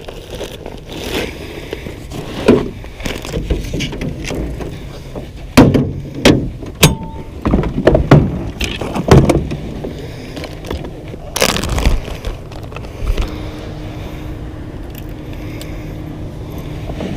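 Clunks and knocks of gear on an aluminium fishing boat, several in quick succession through the middle and a couple more later, over a faint steady low hum.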